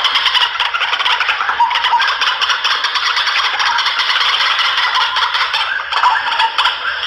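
White-breasted waterhen (ruak-ruak) lure call: a loud, continuous run of rapid, harsh repeated notes.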